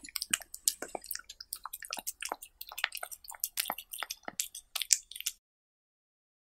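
Cat eating diced cucumber and tomato on a tortilla, close-miked: quick wet crunching and chewing clicks, several a second, which cut off suddenly about five seconds in.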